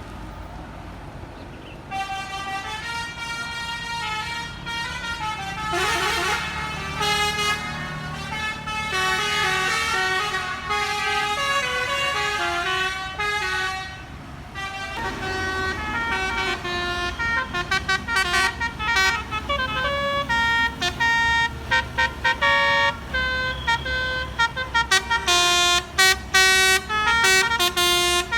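Bus basuri telolet horn playing a melody of stepped, held notes, with the bus engine running underneath. The tune pauses briefly about halfway through, then turns into short, rapid notes near the end.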